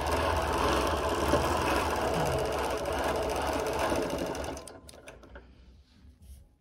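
Bernina quilting machine stitching steadily during free-motion quilting, then stopping about four and a half seconds in, with a few faint clicks after it stops.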